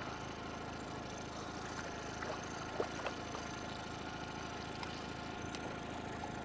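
Steady engine hum, as of a motor idling, with a couple of faint clicks about three seconds in.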